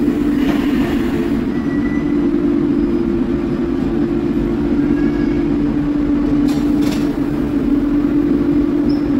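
KVB Stadtbahn light-rail car alongside an underground platform, giving out a steady low hum over a rumble, with a couple of faint clicks near the end.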